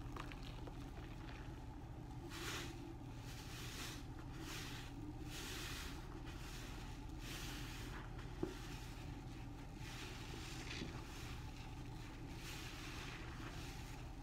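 Large foam sponge full of soapy suds being squeezed and wrung out over a bucket: a series of wet squelches, each lasting under a second, over a steady low hum, with one sharp click about two-thirds of the way through.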